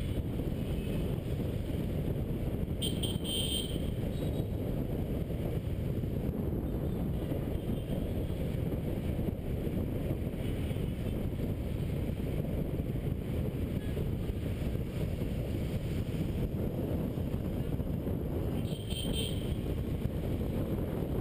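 Steady low rush of wind and road noise on a GoPro riding a motorcycle through city scooter traffic, with engine noise beneath. Two short high-pitched beeps, about three seconds in and again near the end.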